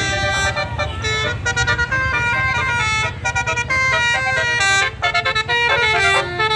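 A bus's 'telolet basuri' musical horn playing a quick melody of many short stepped notes over the low rumble of its engine. The tune breaks off briefly twice before starting up again.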